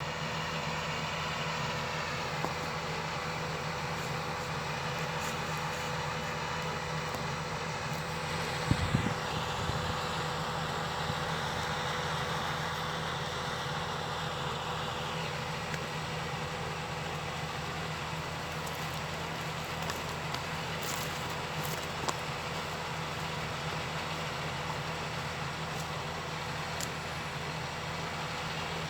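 Excavator's diesel engine running steadily, with a single heavy thump about nine seconds in.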